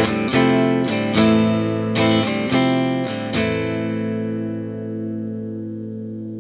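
Amplified 1960s Yamaha SG-5A "Flying Samurai" electric guitar with all three pickups selected: a quick run of strummed chords, the last one left ringing for about three seconds before it is muted.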